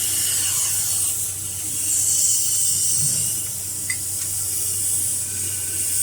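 Steady, loud hiss of air with a low steady hum underneath, typical of compressed air escaping at a screw air compressor.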